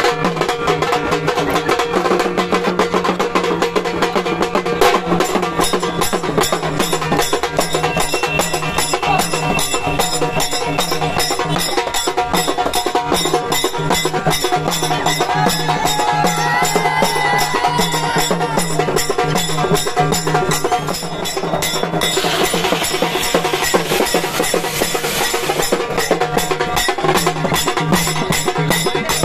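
Band music with fast, dense drumming and a sustained keyboard melody over it.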